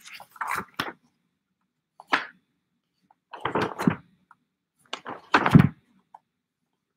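Pages of a 1940s LIFE magazine being turned by hand: a series of short paper rustles and soft thumps as the pages flip over and land. The loudest comes a little over five seconds in.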